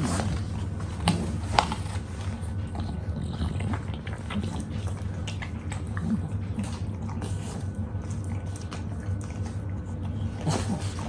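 English bulldog mouthing and biting at a whole apple on a foam floor mat: irregular wet clicks and crunches of teeth on apple skin, with two sharper knocks about a second in and a second and a half in. A steady low hum runs underneath.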